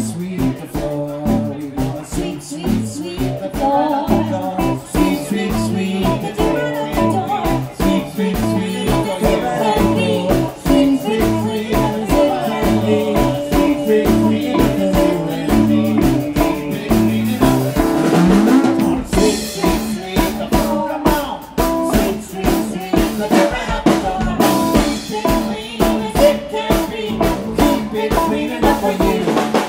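Live band playing a song: electric guitars over a drum kit, with a man singing.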